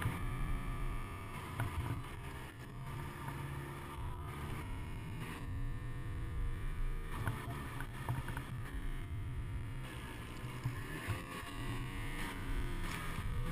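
Ski-Doo snowmobile engine running hard through deep powder, its note rising and falling with the throttle, under a low rumble of wind noise on the microphone.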